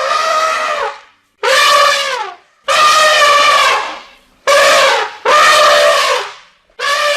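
An animal calling loudly over and over: about six separate calls, each lasting about a second, with a held pitch that drops off at the end of each call.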